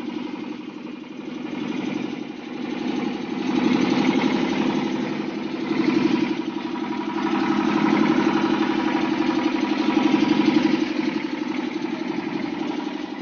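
Motorboat engine running steadily with an even, fast pulse.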